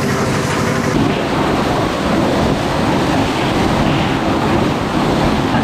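Crushed ice rushing through a delivery hose into a fishing boat's ice hold, a loud, steady rushing noise. An engine hum underneath fades about a second in.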